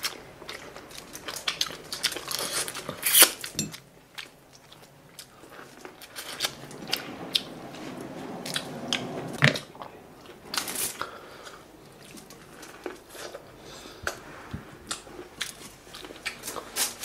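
Seafood boil being eaten by hand: chewing and smacking, with sharp clicks and crackles of shrimp and crab shells being peeled and broken. The loudest cracks come about three seconds in and again near eleven seconds.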